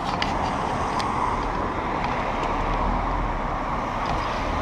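Busy main-road traffic, cars and a van passing close by, heard as a steady rush of engines and tyres on tarmac, with a few faint clicks near the start.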